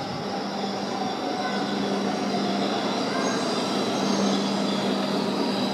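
Shinkansen train pulling into the station beside the platform, its running noise growing slightly louder. A steady low hum runs under a set of high whining tones that strengthen in the second half.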